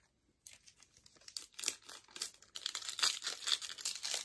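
A Topps Opening Day baseball card pack wrapper crinkling and tearing as it is opened. It starts about half a second in and gets louder after about two and a half seconds.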